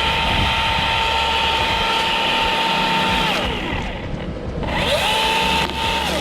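Milwaukee electric chainsaw running at full speed with a steady high whine, released so it winds down about three seconds in, then triggered again about five seconds in for a short burst before it winds down again.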